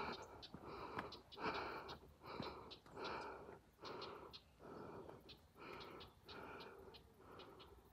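A runner's heavy, rhythmic breathing, panting in and out about twice a second, with light taps of footfalls between the breaths.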